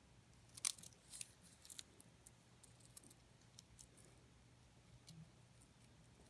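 Faint, sharp clicks of rosewood and opalite beads on a finished stretch bracelet knocking together as it is handled, clustered in the first two seconds and then sparse.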